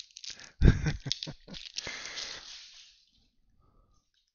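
Shiny foil wrapper of a trading-card pack crinkling as it is peeled open and the cards slid out: a loud crackle under a second in and a few sharper crinkles, then a softer rustle that fades out about three seconds in.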